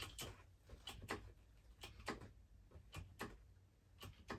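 Hand-pumped hydraulic crimping tool being worked stroke by stroke, giving faint short clicks, often in pairs, about one pair a second, as its dies close a lug onto 4/0 cable near the end of the crimp.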